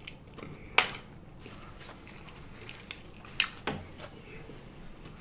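Close-miked chewing of a mouthful of macaroni and cheese, with a few sharp wet mouth smacks: one strong one about a second in and a quick cluster of three past the middle.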